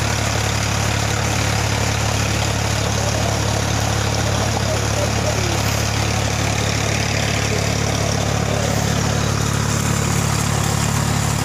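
Tractor engine running steadily at constant speed, driving a generator, with an even low hum.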